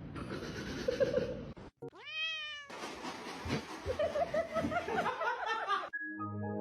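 A cat meows once, about two seconds in, in a single call that rises and then falls in pitch, set among noisy clip audio. Music comes in near the end.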